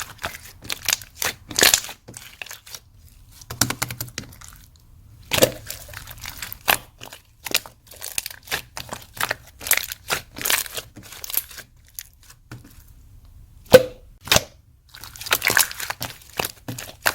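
Slime being squeezed and worked by hand, giving irregular runs of sharp crackles and pops. Two louder snaps come close together near the end.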